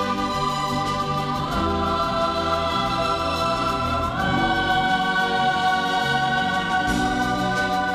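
Choir singing long held chords over orchestral accompaniment, the harmony shifting about a second and a half in and again about four seconds in.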